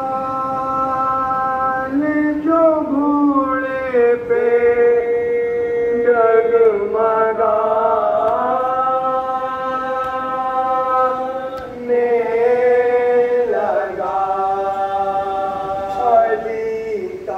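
A group of men chanting a noha, a Muharram lament, without instruments. The voices hold long notes and slide from one pitch to the next.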